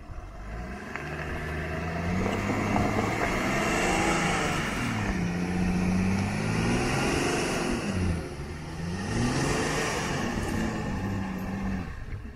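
New Land Rover Defender's engine revving up and down repeatedly as it pulls itself and a caravan out of soft sand. The pitch rises and falls several times over a steady hiss of spinning tyres and thrown sand.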